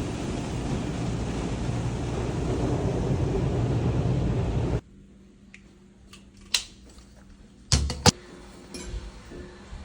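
A steady rushing, rumbling noise that cuts off suddenly about five seconds in, followed by scattered metallic clanks and clinks of gym equipment, the loudest a quick pair of knocks near the end.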